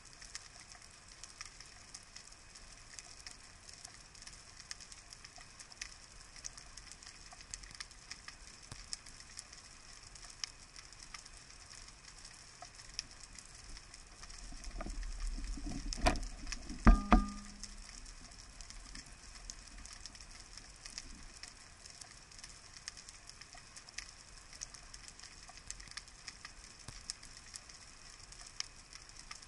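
Underwater reef ambience: a steady crackle of many faint clicks. Past the middle a low rumble swells, then two loud knocks come about a second apart, the second with a short ringing tone.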